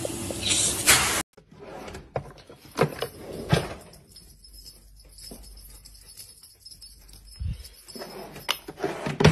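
Vacuum cleaner running with its hose held to a cat's face, cutting off suddenly after about a second. Then a few soft knocks and rustles of hands and small objects.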